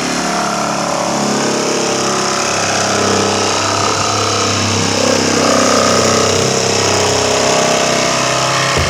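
Electric jigsaw running steadily as its blade saws through the top of a plastic drum.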